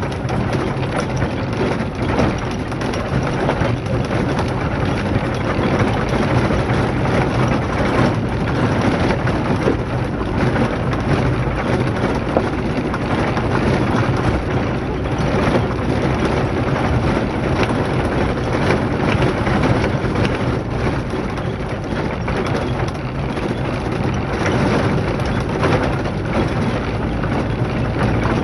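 A vehicle driving on a gravel dirt track: steady crunching rumble of tyres on gravel and stones over a low engine hum.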